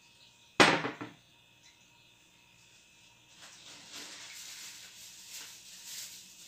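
A glass bottle set down on a steel kitchen counter with one sharp knock about half a second in. From about three seconds on comes a soft, uneven hiss of handling noise.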